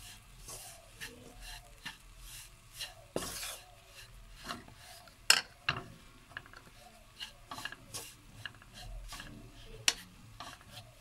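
Wooden spoon stirring and scraping gram flour roasting in ghee in a pan: irregular scraping strokes with a few sharp knocks, the loudest about five seconds in and again near the end.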